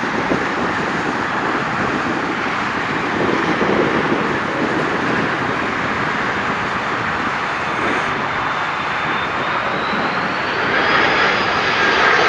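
Jet noise from a large twin-engine airliner, an Airbus A330, coming in to land. A steady rumble has a high whine over it that rises in pitch in the second half and grows louder near the end as the plane nears.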